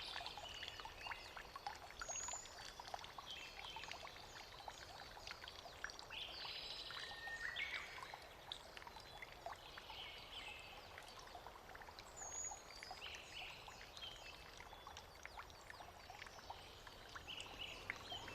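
Faint outdoor ambience: scattered short bird chirps and twitters over a soft, even hiss like trickling water.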